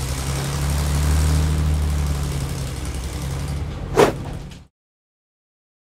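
Bulldozer's diesel engine running steadily, with a short, loud burst about four seconds in; the sound cuts off suddenly about half a second later.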